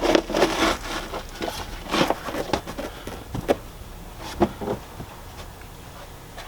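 Razor knife scraping through carpet and the insulation beneath it, with rustling of the cut carpet: a string of separate short scrapes over the first few seconds, then quieter toward the end.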